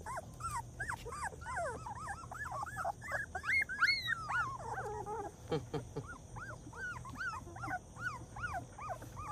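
English cream golden retriever puppies whimpering: a continuous run of short, high whines that rise and fall, two or three a second, with several overlapping about halfway through.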